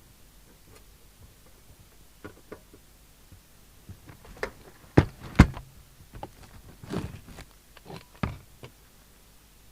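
A series of scattered clicks and knocks, a few light ones at first, then the two loudest about five seconds in, and a further cluster a little later.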